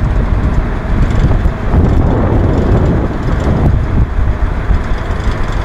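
A DUKW amphibious truck's GMC 270 straight-six engine running steadily while the vehicle cruises through the water, heard from on board.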